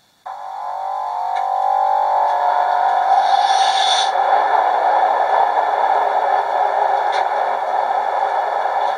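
Class 91 electric locomotive sounds played through a model's DCC sound decoder: the main transformer energising as the pantograph rises, a hum that cuts in suddenly and swells over a couple of seconds into a steady drone. A short hiss about three seconds in.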